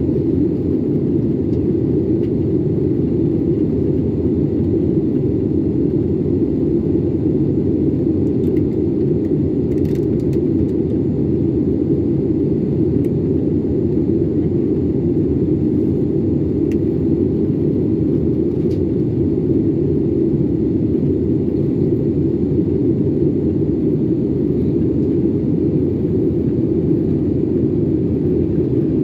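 Steady cabin noise of a jet airliner in flight: a constant low rumble of engines and rushing air heard from a window seat.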